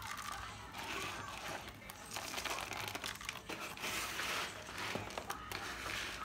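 Plastic litter scoop raking and sifting through green pellet cat litter in a plastic litter box, the pellets rustling and scraping in repeated strokes as clumps are lifted out.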